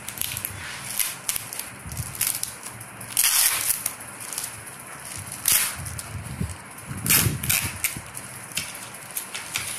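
Plastic packaging crinkling and rustling in irregular bursts as a grey plastic mailer and a clear plastic bag are handled and pulled off a box. The loudest crackles come about three seconds in and again about seven seconds in.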